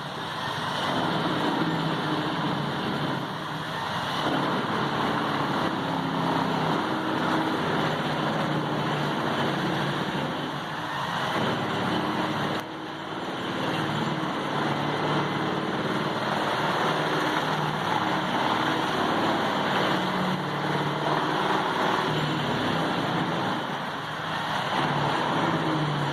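Heavy diesel wood-chipping machinery running steadily under load, an engine drone over a grinding noise. The sound breaks off abruptly about halfway through and carries straight on.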